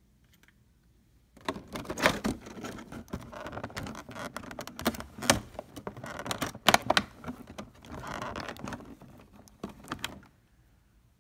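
Plastic packaging crinkling and rustling as a flat iron's box and its plastic-wrapped cord are handled, with many sharp clicks and taps; it starts about a second and a half in and stops near the end.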